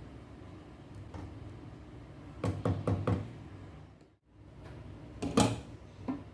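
Kitchenware knocking on a hard surface: a quick run of four knocks about two and a half seconds in, then after a short break a louder single knock and a lighter one near the end.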